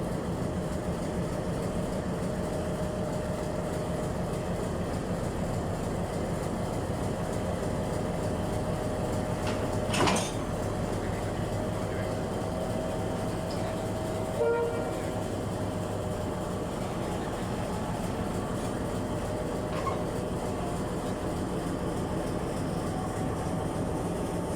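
Diesel locomotive engine running steadily with a low hum. A single sharp clank comes about ten seconds in, and a shorter knock with a brief tone about four seconds later.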